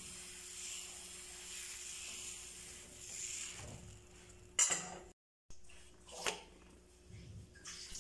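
Dosa batter sizzling faintly on a hot nonstick pan while a metal ladle spreads it, followed by a few sharp clicks of the ladle against the pan, the loudest about four and a half seconds in. The sound cuts out completely for a moment just after five seconds.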